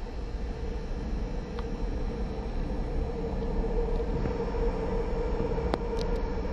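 A steady low rumble with a hum, growing a little louder, and a few faint clicks near the end.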